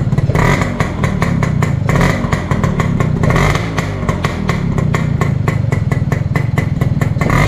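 Suzuki RC100's two-stroke single-cylinder engine running through a homemade rocket-style silencer, blipped with the throttle about four times: about half a second in, near two seconds, around three and a half seconds, and near the end. Each blip briefly revs it up and turns it noisy.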